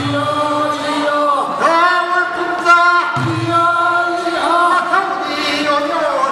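Group of men singing a Korean traditional fishermen's work song in chorus, in long sung phrases, with a low sound that comes back about every three seconds.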